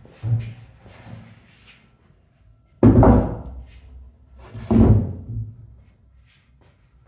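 Two heavy thumps about two seconds apart, with a lighter knock near the start.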